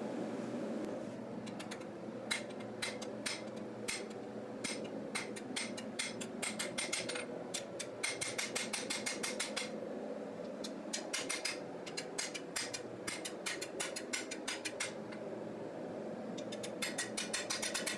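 Hand hammer striking a hot knife blade on an anvil in quick runs of blows, several a second with short pauses, peening steel down from the plunge line into the heel. A steady hum runs underneath.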